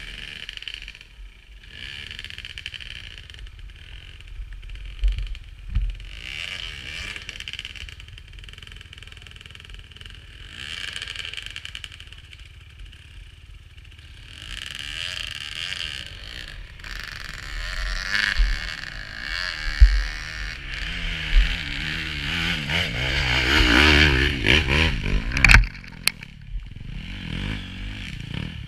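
250 cc enduro dirt bike engine on a steep, rutted hill climb, revving up and dropping back in repeated bursts every few seconds. Near the end it revs harder and longer, then cuts back sharply. Low thumps and knocks from the bike jolting over the ground come through the helmet camera.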